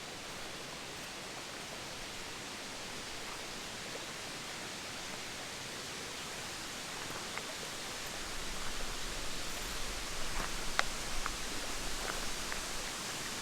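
Steady wind rushing through forest trees, picking up in gusts about eight seconds in, with a few faint clicks and ticks.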